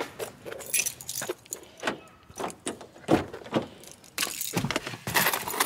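Car keys jangling and a string of clicks and rustles as a car door is opened and someone climbs into the driver's seat, with a sharp click about three seconds in and a louder patch of handling noise near the end.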